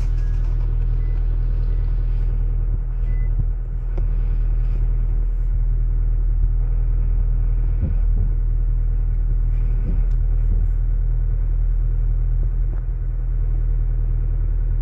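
The engine of a Toyota car with a manual gearbox runs at low revs while the car is in reverse, heard from inside the cabin as a steady low rumble. A few faint clicks come through it.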